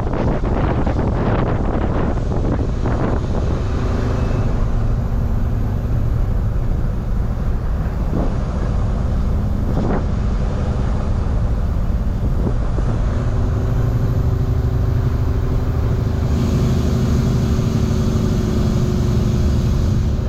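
A semi-truck's diesel engine runs steadily under load while hauling a loaded refrigerated trailer. Its engine note settles at a new pitch a few times, and there are a couple of short knocks near the middle.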